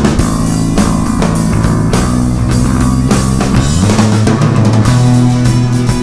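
Rock music backing track with guitar and a steady drum beat.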